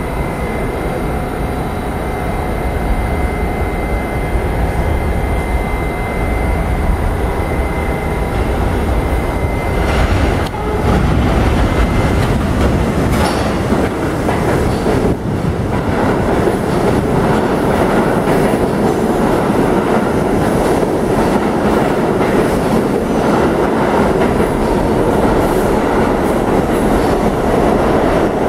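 New York City subway D train pulling into an underground station, its rumble building after a steady early whine and staying loud as the cars run past with wheels clattering over the rails.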